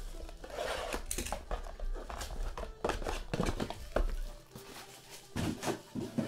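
Clear plastic shrink-wrap crinkling as it is pulled off a sealed trading-card box, followed by a run of sharp clicks and light knocks as the small cardboard boxes are handled and stacked.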